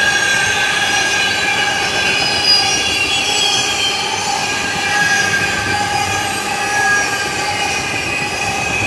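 A long CSX freight train of loaded tank cars rolling past at speed, its steel wheels squealing in several steady high tones over the running noise of the cars.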